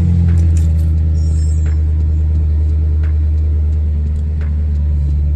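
BMW N62 V8 engine idling steadily just after start-up, a steady low hum. The owner finds its idle choppy and suspects dirty VANOS solenoids.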